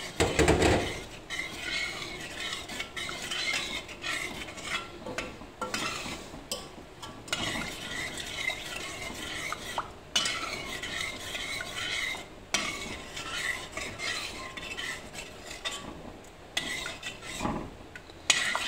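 A wooden spoon stirs sugar into instant coffee in a stainless steel saucepan, making a continuous irregular scraping and swishing against the bottom and sides of the pot. The spoon knocks hard against the pot just after the start, and there is a duller knock near the end.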